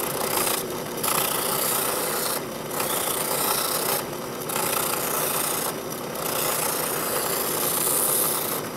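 Delta drill press spinning a sanding drum at about 1100 rpm, a wooden piece's curved edge pressed against it: a steady abrasive rasp over the running machine, easing off briefly four times as the piece is shifted along the drum.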